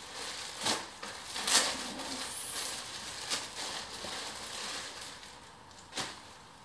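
Clear plastic garment bag crinkling and rustling as a folded top is handled and pulled out of it, with several louder crackles in the first half and a single sharp click near the end.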